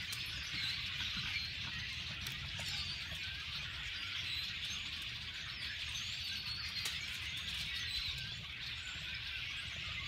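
A large flock of birds in bare treetops calling all at once, a dense, unbroken chatter of countless overlapping chirps.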